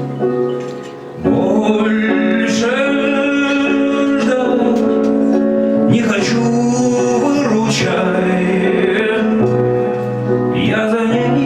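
Male singer singing long, held notes with a slight waver over a band accompaniment of guitar and steady bass notes.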